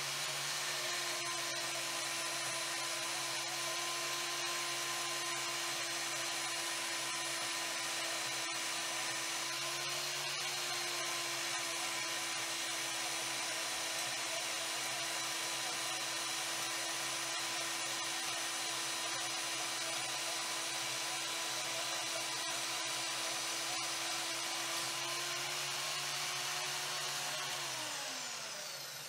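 Vevor portable metal-cutting bandsaw running steadily as its blade cuts through a short piece of metal pushed into it by hand. Near the end the motor is switched off and winds down with a falling whine.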